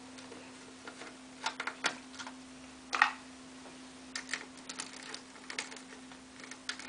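Irregular light metal clicks and taps of a screwdriver working out a small screw from the sheet-metal noise shield of an LCD monitor. The loudest click comes about three seconds in, over a faint steady hum.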